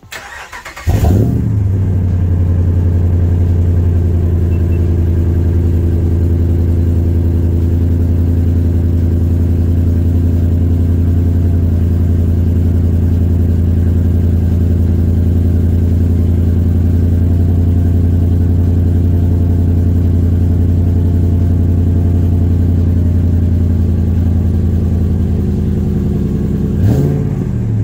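A 2012 Ram 1500's 5.7 L Hemi V8, running through a new Proven Ground dual exhaust with rear-exit tips and JBA shorty headers, starts about a second in with a short loud flare, then idles steadily with a deep, even exhaust note.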